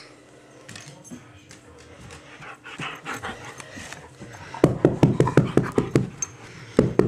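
Puppy panting fast and loud close to the microphone, starting a little past halfway and breaking off briefly before a shorter run near the end.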